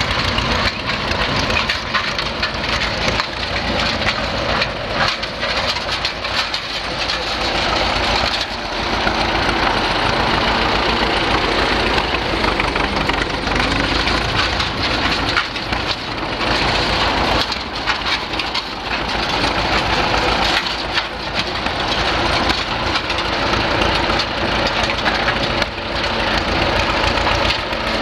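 Case 18-32 crossmotor tractor's four-cylinder engine running steadily as the tractor drives slowly on its steel wheels over concrete.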